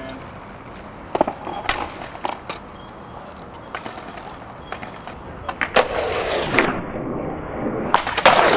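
Skateboard sounds on stone and concrete: scattered clicks and taps, then wheels rolling, and a loud, sharp pop and clack about eight seconds in as the skater ollies off a ledge.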